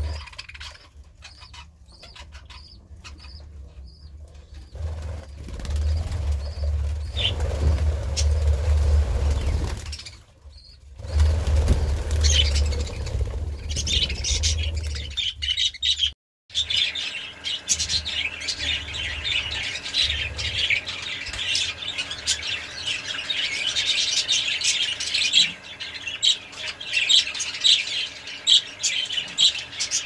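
Budgerigars chirping: a few scattered chirps at first, with a low rumble through the middle. After a short break about halfway, many budgies chatter densely together.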